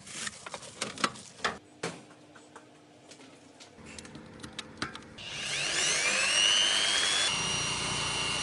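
A few clicks and knocks of handling, then about five seconds in a power drill starts up, its whine rising in pitch before running steadily as it spins a homemade cotton candy maker.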